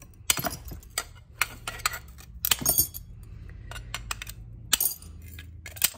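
Mosaic glass nippers snapping pieces off the thin lower part of a clear glass vase: a string of sharp, irregular cracks and clinks as the glass breaks and small shards drop.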